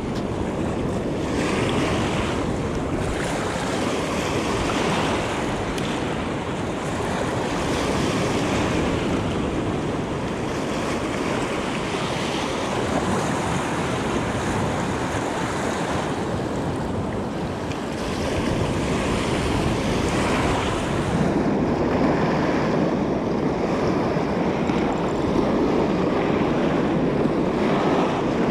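Sea waves washing and wind gusting on the microphone, a steady rushing noise that grows heavier in the low end about two-thirds of the way in.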